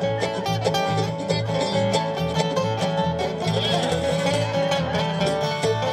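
Bluegrass band playing a tune: upright bass keeping a steady beat under strummed acoustic guitars and mandolin.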